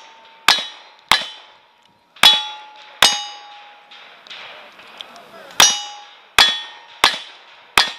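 Single-action revolver firing at steel targets, each shot followed by the ring of the struck plate. Four shots come about a second apart, then a pause of about two and a half seconds, then four more.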